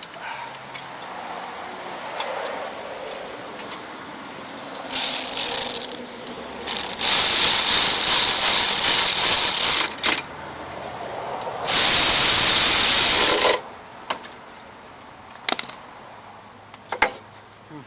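Power drill driving bolts in three loud bursts of rattling noise, about one, three and two seconds long, with a few short clicks afterwards.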